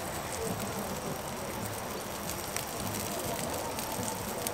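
Sausages frying in a pan on a Trangia spirit stove, a steady low sizzle, with a few light clicks.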